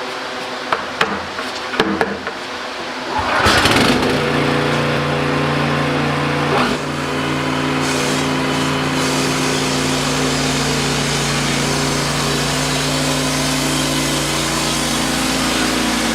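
Wood-Mizer LX55 sawmill's engine starting about three seconds in after a few knocks, then running steadily.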